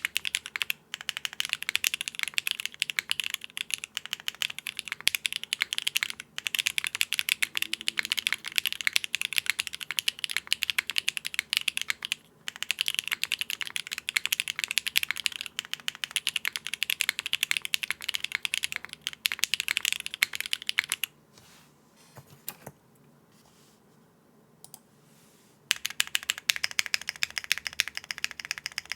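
Fast, continuous typing on a Cycle7 mechanical keyboard with factory-lubed BSUN Strawberry Wine V1 linear switches, mounted on a polypropylene plate with no foam and capped with GMK keycaps, giving a clacky sound. About three-quarters of the way through, the typing stops for roughly four seconds, with a single stray keystroke in the gap, then starts again.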